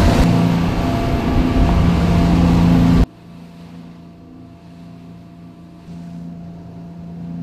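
Small boat's engine running at speed with loud rushing wake water and wind for about three seconds, then a sudden cut to a much quieter, steady engine drone.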